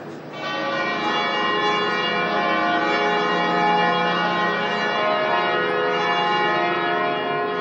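Church bells start ringing about half a second in, several bells sounding together in a continuous peal.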